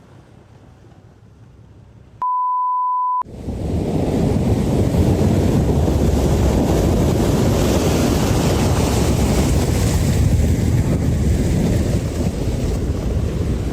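Faint background noise, then a one-second censor bleep at a single steady pitch, then loud, steady rushing storm wind buffeting the microphone.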